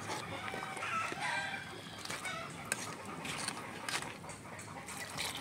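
Chickens clucking, with a few short calls about a second in, and light clinks of a metal ladle against the cooking pot.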